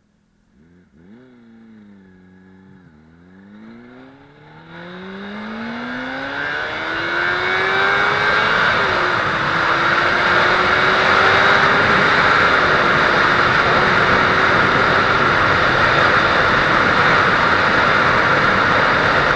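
A 600 cc sportbike engine pulling away and accelerating: its pitch climbs steadily, dipping briefly at gear changes about nine seconds in and twice more later. Wind rush builds from about five seconds in and becomes the loudest sound as speed rises.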